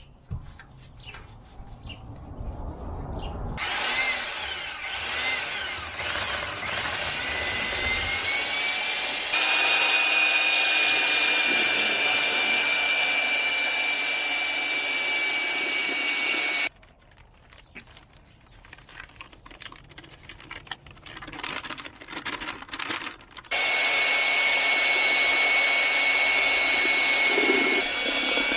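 A power tool's motor runs with a steady high whine, winding up in pitch early on before holding steady. It cuts to several seconds of quieter clicks and scrapes, then the whine starts again abruptly.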